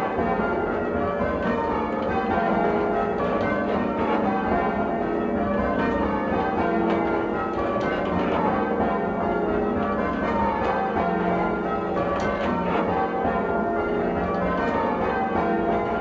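Church bells being rung full circle in change ringing: a steady, continuous stream of overlapping bell strikes. Heard from the ringing chamber beneath the bells.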